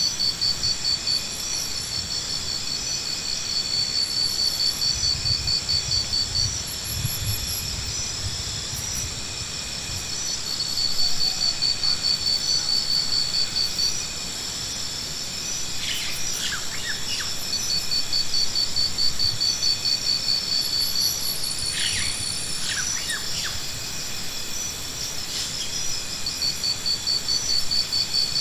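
Insects trilling: several overlapping high, rapidly pulsing calls that come and go in long trains. A few short bird chirps cut in during the second half.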